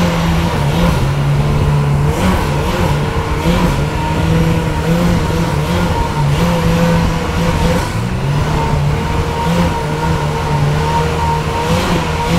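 Watersports Car boat's engine running steadily at speed, its pitch wavering slightly, with a loud rush of wind and water throughout.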